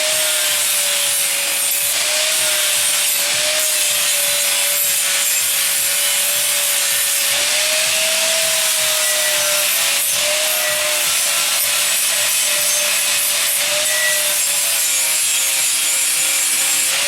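Angle grinder working steel: a steady whine over a harsh grinding hiss, the pitch wavering slightly as the disc is loaded; it cuts off suddenly near the end.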